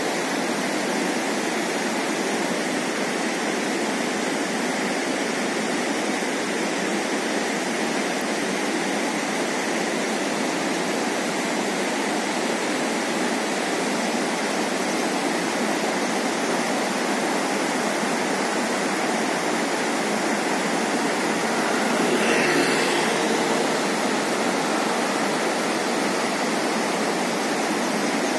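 Steady rushing of running water, even and unbroken, with a brief louder sound carrying a faint tone about three-quarters of the way through.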